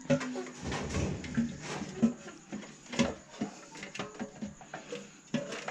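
Scattered, irregular clicks, knocks and light rattles of scooter parts being handled and fitted back in place during reassembly.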